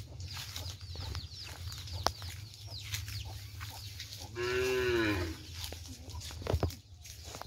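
A cow mooing once: a single call just under a second long, rising then falling in pitch, about halfway through. Small birds chirp around it.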